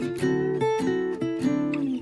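Background music: a picked acoustic guitar playing a gentle melody.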